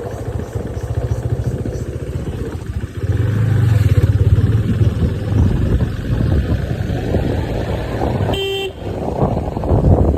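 Road vehicle engine running steadily while driving, louder from about three seconds in, with one short horn toot near the end.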